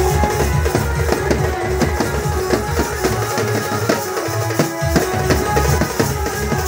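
Village drum band playing a fast dance beat for a naagin dance: stick-struck drums with a deep bass beat under a held melody line. About halfway through, the deep beat drops out for about a second and a half, then comes back.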